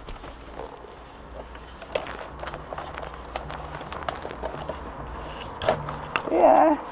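Sheets of paper rustling and crackling as they are handled and folded by hand, in many small irregular crackles. Near the end comes a short, loud voice sound lasting about half a second.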